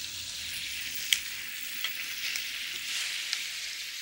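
Chicken strips sizzling as they sear in hot oil in a stainless steel skillet over high heat: a steady hiss with a few sharp pops, the loudest about a second in.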